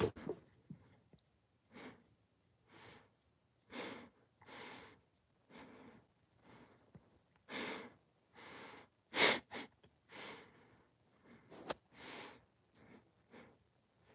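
A man breathing hard through a cloth mask during push-ups: short noisy exhales about once a second, with one louder, sharper exhale about nine seconds in.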